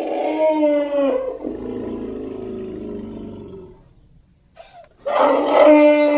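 Woolly mammoth sound effect: a loud trumpeting call that slowly drops in pitch, trailing off into a lower rumble for a few seconds, then a second call beginning about five seconds in.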